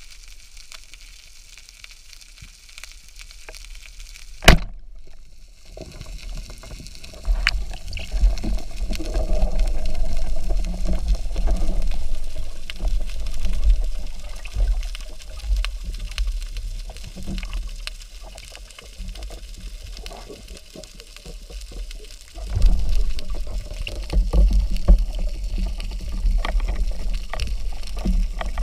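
Underwater speargun firing: one sharp crack about four and a half seconds in. Then the low rush and bubbling of water around the diver as he moves and handles the gun.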